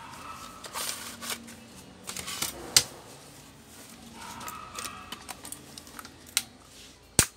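Plastic laptop case being pried apart by hand: irregular clicks and creaks with a few sharp snaps, the loudest about three seconds in and just before the end.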